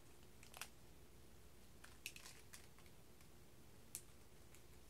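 A few faint, brief crinkles and ticks from a small clear plastic bag of diamond-painting beads being handled by fingers, over near silence.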